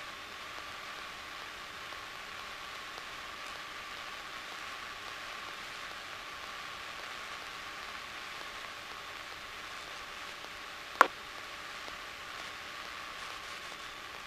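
Steady hiss with a faint high tone on a light aircraft's cockpit intercom audio, and one sharp click about eleven seconds in.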